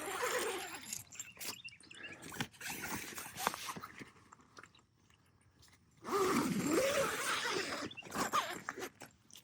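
Tent zipper being drawn shut along the bug mesh, rasping in several pulls, with a near-silent pause about halfway through.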